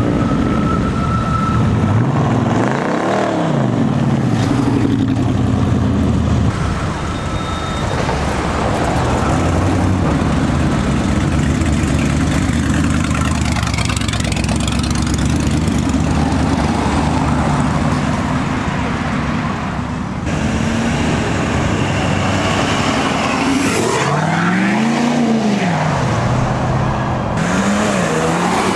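A stream of cars driving off past one after another, engines revving and accelerating, each swelling and then falling in pitch as it goes by.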